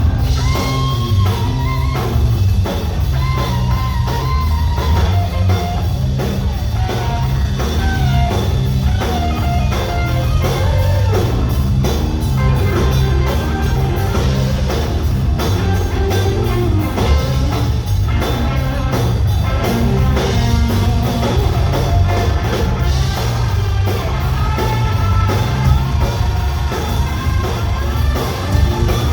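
Live rock band playing loud: an electric guitar lead line with bending notes over bass guitar and a drum kit.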